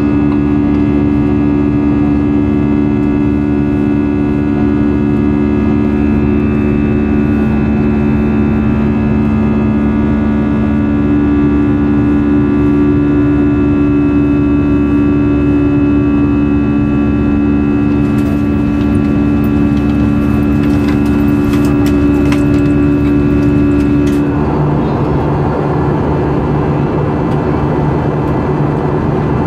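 Jet engine of an Airbus A320 heard from inside the cabin during the climb: a steady drone carrying several fixed tones. About 24 seconds in, the strongest tones fall away and it turns into a broader rushing noise.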